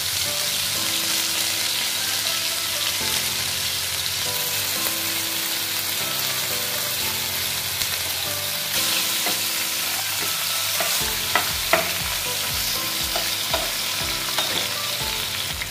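Hot oil sizzling steadily in a frying pan with potato wedges, tomato and whole spices. From about eleven seconds in, a spatula stirs the pan, with light taps against it.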